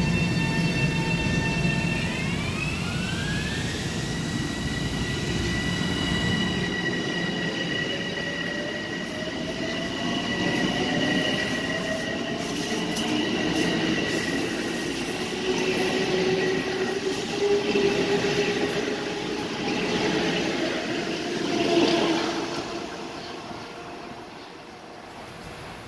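Bombardier M7A electric multiple unit pulling away: its traction motors whine in several tones that start climbing in pitch about two seconds in as it accelerates, over the rumble of the wheels and cars. The sound fades as it draws away near the end.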